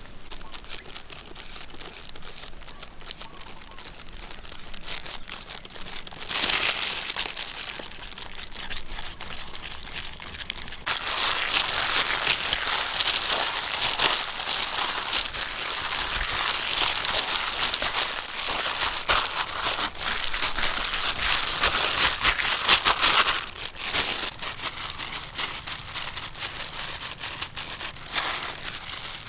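Plastic-gloved hand mixing and squeezing a grated potato mixture in a metal bowl: a dense crinkling of the plastic glove, loudest from about 11 to 23 seconds in. Before that comes a quieter stretch of grating, with a brief louder rustle about six seconds in.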